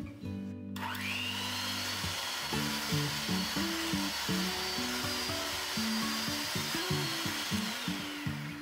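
Cuisinart electric hand mixer starting up about a second in with a quickly rising whine, then running steadily as its beaters whip butter and powdered sugar in a glass bowl. The whine drops as it slows near the end. Background music plays underneath.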